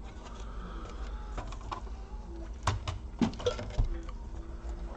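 Laptop parts being handled on a workbench: a handful of small sharp clicks and knocks clustered in the middle, over a low steady hum.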